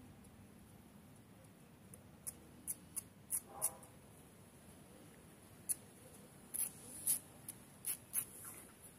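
A dog's claws clicking and scraping on a concrete pavement as it steps and paws: a scatter of short sharp ticks, sparse at first and more frequent in the second half.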